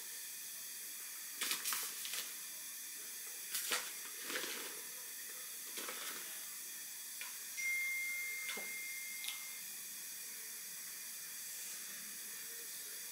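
A few soft scrapes and taps of a spoon spreading basil pesto over a flatbread pizza base, over a steady hiss. A faint steady tone sounds for about two seconds partway through.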